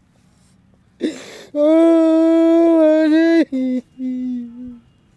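An elderly man wailing in grief: a sharp gasp about a second in, then one long held wailing cry, followed by two shorter sobs that fall in pitch.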